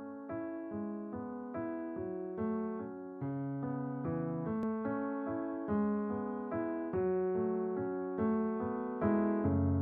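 Slow, gentle piano-like keyboard music: single notes struck about twice a second, each fading before the next.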